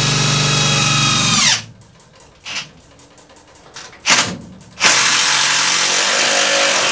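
Cordless power tool motor running, winding down with a falling whine about a second and a half in. After two short blips it runs steadily again from about five seconds in.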